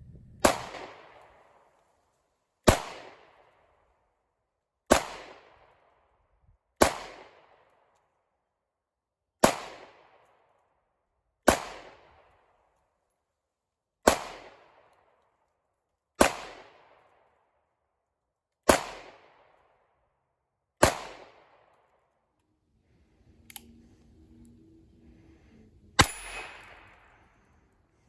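Gun being fired at a steady, unhurried pace: ten shots about two seconds apart, then a short pause and one more shot, each with a ringing echo tail.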